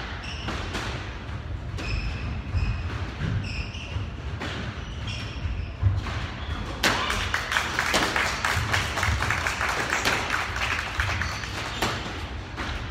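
Squash rally: the ball cracks off racquets and the court walls in sharp thuds a few seconds apart, with short squeaks of court shoes on the wooden floor and busy scuffling footwork in the second half.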